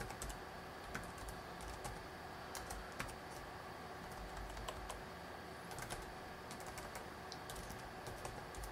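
Typing on a computer keyboard: scattered, irregular keystrokes with pauses between them, over a faint steady hiss.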